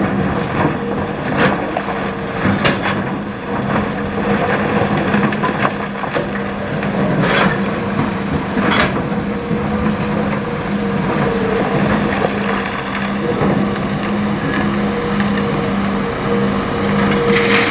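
Hitachi hydraulic excavator's diesel engine running steadily under load, with stones knocking and clattering against the steel bucket as it digs and loads gravel; two loud rock impacts stand out about seven and nine seconds in.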